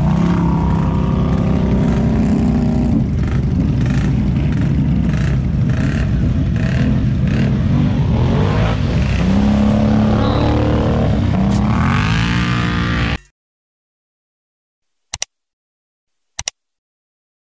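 ATV engines running and revving through a muddy water hole, with water and mud splashing. Near the end the pitch climbs sharply as one is revved hard. The sound then cuts off suddenly, followed by two short clicks.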